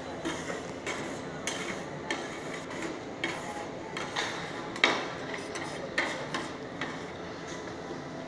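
Two metal spatula scrapers chopping and scraping on the steel pan of a rolled ice cream cold plate: a run of sharp taps and scrapes, roughly one or two a second, the loudest about five seconds in.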